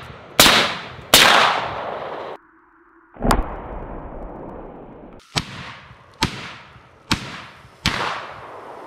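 PSA Jakl 10 rifle firing 147-grain .308 Winchester rounds: two sharp shots under a second apart, then after a short break five more shots roughly a second apart, a little fainter, each trailing off in an echo.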